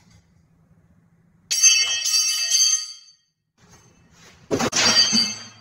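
Red fuel cans being shifted on a wall rack: two loud clattering crashes with a jangly, ringing rattle, the first about a second and a half in and lasting over a second, the second near the end starting with sharp knocks.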